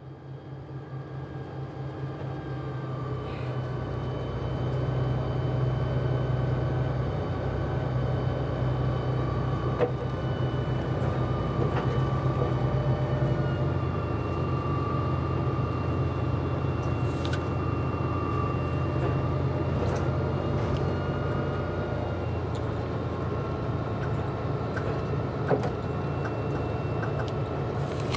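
Bus cabin noise: the bus engine's steady drone with a high whine, swelling up from silence over the first few seconds. The engine note and whine drop about halfway through, with a few small clicks and rattles, and a crisp bite into an apple right at the end.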